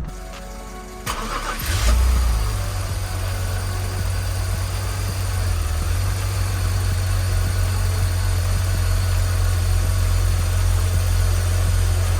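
BMW M54 straight-six engine starting: it cranks about a second in, catches with a brief rise in level just before two seconds, then idles steadily with a low, even hum.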